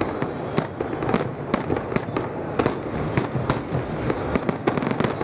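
Fireworks display: aerial shells bursting in a rapid, irregular run of sharp bangs and crackles, about three or four a second, over a steady background rumble.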